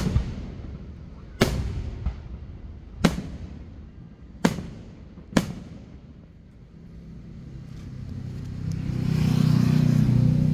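Aerial firework shells bursting: five sharp bangs roughly a second to a second and a half apart, each trailing off briefly. After them a passing vehicle's engine and tyre noise swells to a loud hum near the end.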